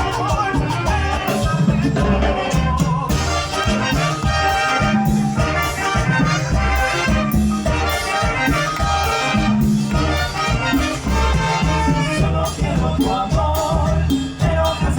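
Live tropical dance band playing an instrumental passage, with a strong bass, brass lines and maracas over a steady beat.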